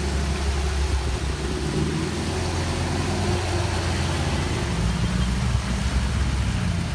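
Jeep Wrangler Rubicon and Land Rover Defender engines running hard under load as the Jeep tows the stuck Defender out of deep mud on a tow strap, with tyres churning through mud and water. The engine note shifts in pitch a few times.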